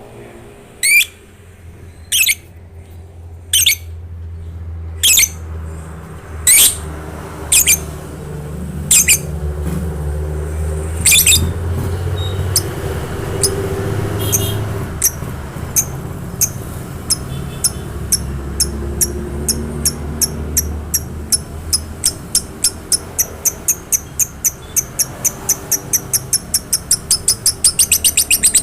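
Lovebird chirping. Sharp, high single chirps come about a second and a half apart at first, then speed up steadily into a fast run of chirps near the end, over a low steady hum.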